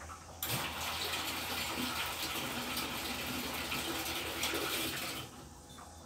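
Water gushing in the tub of a Whirlpool 7EWTW1409YM0 top-load washing machine. It starts suddenly about half a second in and cuts off about five seconds in.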